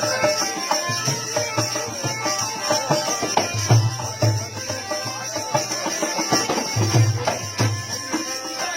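Marwari folk music: a melody over a steady hand-drum beat, its low strokes falling about twice a second.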